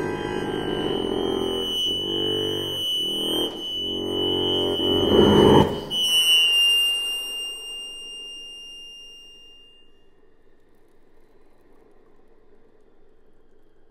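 Chromatic button accordion playing dense, sustained cluster chords broken by short gaps, building to a loud accented chord about five seconds in. A few high tones then linger and die away over the next few seconds, leaving the room quiet.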